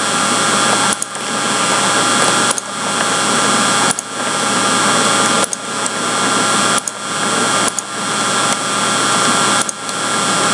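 Loud, steady hiss with a hum from a poor-quality microphone recording. Sharp clicks come about every second to second and a half, and after each one the noise dips and then swells back up.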